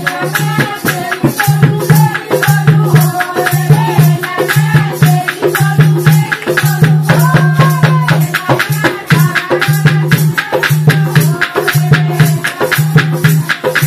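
Folk song with a dholak drum beating steadily under a fast, dense rattling percussion, with women's singing over it.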